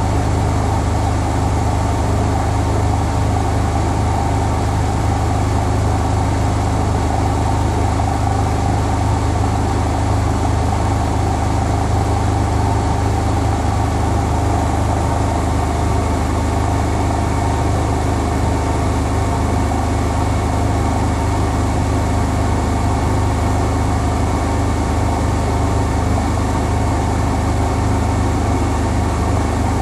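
Bosch Home Professional WAY32742 front-loading washing machine spinning at a steady speed, a constant low hum with no rise or fall. The load of two bath rugs is unbalanced: the brown rug sheds its water much faster than the green one.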